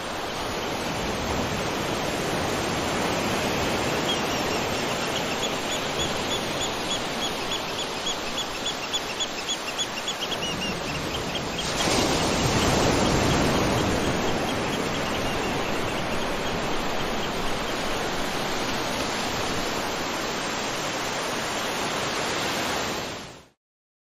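Steady rushing roar of a waterfall. From about four seconds in until about eleven seconds, a bird sings a quick run of high, repeated chirps over it. Just before the halfway point the water sound swells louder and fuller, and near the end it cuts off suddenly.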